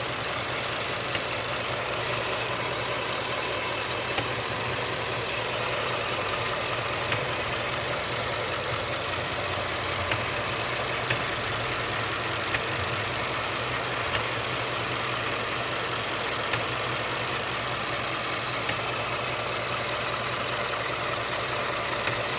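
Ford F-150's 5.0 V8 idling steadily, with sharp, irregular knocks every one to three seconds. This is the intermittent knocking sound that went away and came back.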